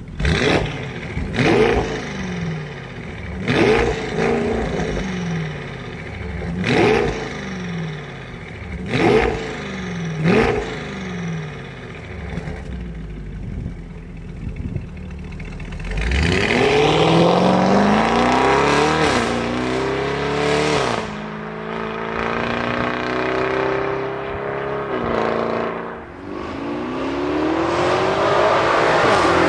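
Bentley Bentayga's twin-turbo V8 through a Mansory exhaust system, blipped at a standstill about six times in the first eleven seconds, each rev climbing and dropping quickly with crackles. About sixteen seconds in it sets off under hard acceleration, the note climbing through gear changes, and near the end it rises again as the car comes toward the microphone.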